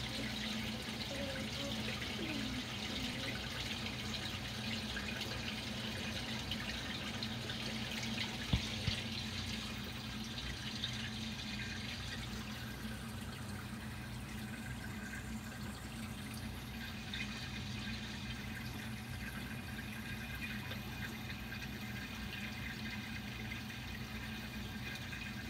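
Reef aquarium water circulating: a steady trickle of moving water over a low, even hum, with one brief click about eight and a half seconds in.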